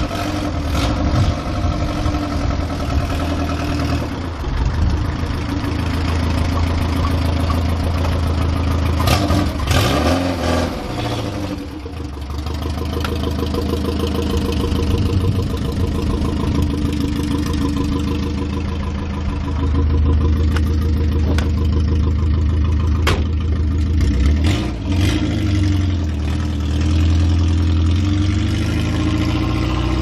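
1969 Ford Capri engine running and being revved, its note sagging and picking up again, with dips about twelve seconds in and again near the end. The engine coughs and splutters and bogs down when revved: the carburettor's idle jet is too small and starves it of fuel.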